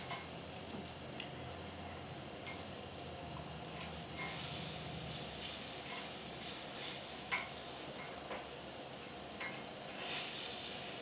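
Æbleskiver batter sizzling in the æbleskiver pan, louder from about four seconds in, with light clicks about once a second as a metal knitting needle taps the pan while the balls are turned over.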